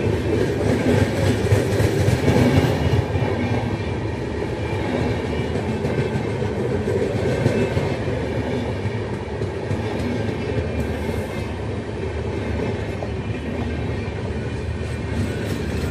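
Passenger train coaches running past on the adjacent track: a steady rumble of steel wheels on rail.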